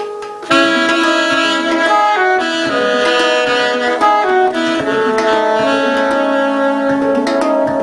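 Alto saxophone playing a melody of held notes, entering about half a second in, over a handpan (AnnaZiska Asachan) struck by hand in a steady pattern.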